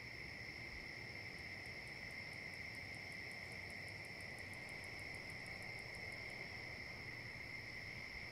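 A trail camera's own faint steady electronic whine, two high thin tones holding level throughout. Rapid faint high ticking joins it for a few seconds in the middle.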